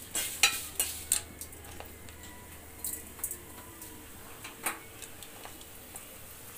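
Fuchka puris deep-frying in hot oil in an iron karahi: irregular pops and crackles, thickest in the first second, then scattered, over a faint hiss.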